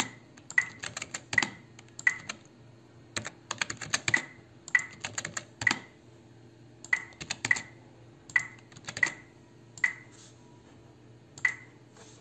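Computer keys and mouse buttons clicking in short clusters of a few quick clicks with brief pauses between them, as numbers are entered. A faint steady electrical hum runs underneath.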